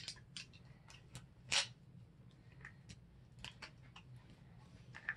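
Faint, scattered clicks and rustles of a plastic wrapper being pulled off a Pixie Pop toy candy, about a dozen short strokes with a slightly louder rustle about a second and a half in.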